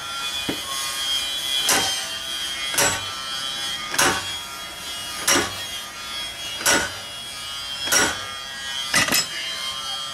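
A long steel bar is rammed down repeatedly against a tractor tire's bead to break it off the steel rim. About eight sharp metallic strikes come a little over a second apart, with a high ringing tone carrying between them. The bead is stuck tight.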